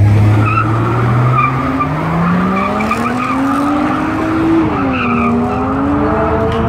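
Race cars accelerating hard away from a drag-race start, the engine note climbing steadily, dipping about five seconds in at a gearshift, then climbing again.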